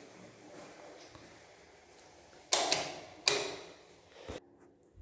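A balcony door being opened: two loud, sharp clacks of the latch and frame about a second apart, then a short low thud.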